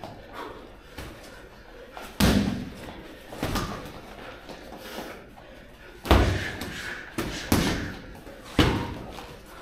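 Gloved punches landing during boxing sparring: about five heavy thuds at uneven intervals, the loudest about six seconds in.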